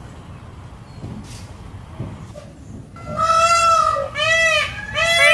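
Peafowl calling: after about three seconds of quiet outdoor background, one long loud call, then two short, arching honking calls in quick succession.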